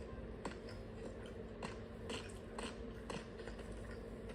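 A cockatiel's beak nibbling: faint, irregular small clicks and crunches, about two a second.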